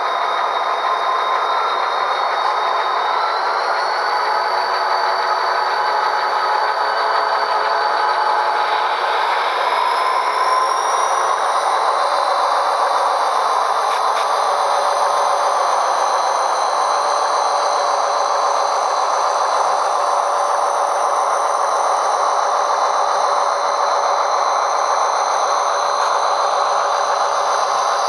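HO scale EMD diesel locomotive model's DCC sound decoder playing prime-mover engine sound through its small speaker, thin with no bass. The engine revs up about three seconds in and rises again around ten seconds in.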